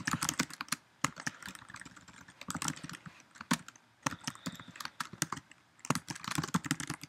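Typing on a computer keyboard: runs of quick keystrokes, with short pauses between the runs.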